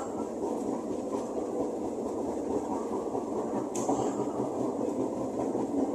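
Cabin running noise of a KRL Commuter Line electric train in motion: a steady rumble with a few light clicks from the wheels and carriage, one sharper click about two-thirds of the way through.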